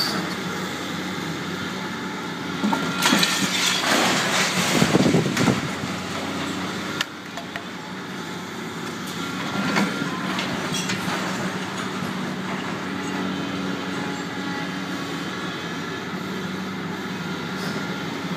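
Doosan DX300LC demolition excavator's diesel engine running steadily, with a louder stretch of metal scraping and crunching about three to six seconds in as the machine works scrap.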